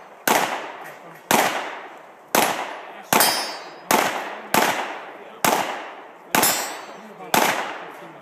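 Glock pistol fired nine times at an uneven pace of roughly one shot a second, each shot a sharp crack with a long echo trailing off.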